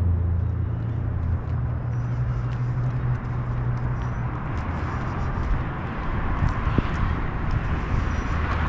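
Passing street traffic: a low vehicle engine hum that fades after about three seconds, then a swelling rush of tyre and road noise in the second half.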